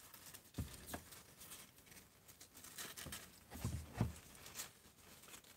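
A few soft knocks and faint rustling around a cardboard box holding newborn kittens: handling noise of the box and its contents.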